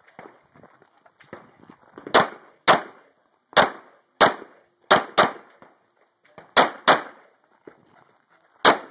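Pistol shots, about ten, mostly fired in quick pairs with a second or so between pairs.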